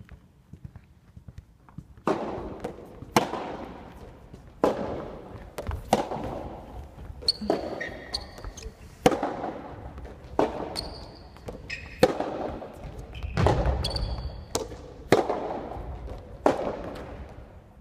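Soft tennis rally on an indoor court: racket strings striking the soft rubber ball and the ball bouncing on the wooden floor, a sharp echoing pop about every second and a half from about two seconds in. Short squeaks of sneakers on the floor come in between some hits.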